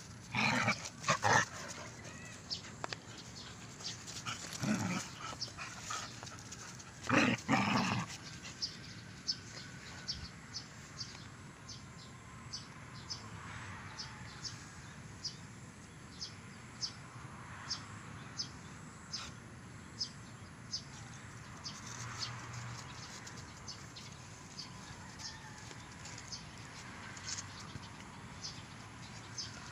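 Two dogs playing, giving short loud bursts of dog noise about a second in and again about seven seconds in, with a smaller one between. After that comes a run of light ticks, roughly one or two a second.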